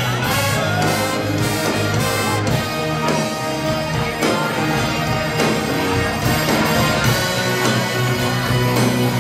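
Live rock band with a horn section playing an instrumental passage with a steady beat and a strong bass line, heard from among the audience.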